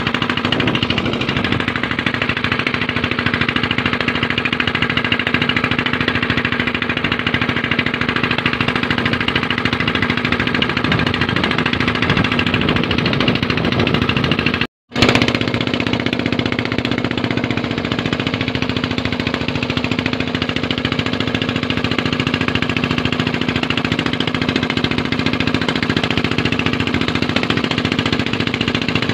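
Engine of a motorized outrigger banca running steadily under way, a constant drone with rapid even firing. The sound breaks off for an instant about halfway through, then carries on the same.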